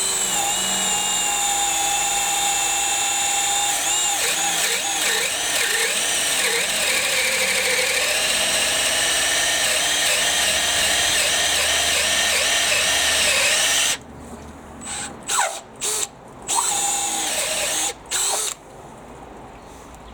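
Makita XPH06 18V brushless hammer drill in second gear boring a 25 mm speed bore bit into treated pine. The motor whine sags and wavers as the bit loads up in the wood, and the bit may be a bit blunt. The steady run stops about 14 seconds in, followed by a few short trigger bursts that end a few seconds later.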